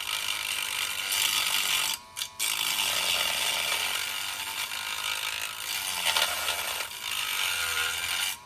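Dremel rotary tool with a grinding stone, running at speed and grinding away the old plastic smokestack. It breaks off briefly about two seconds in, then carries on and stops just before the end.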